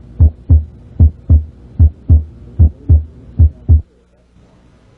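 Normal heart sounds: five regular lub-dub pairs, S1 from mitral valve closure followed by S2 from aortic valve closure. Each pair is two short low thumps with a longer diastolic pause before the next pair, at roughly 75 beats a minute. They stop a little before four seconds in.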